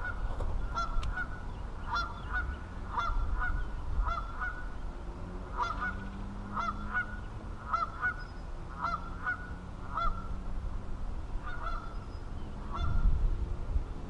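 A bird calling over and over, short honk-like calls about one every half second to second, over a low rumble that swells near the end.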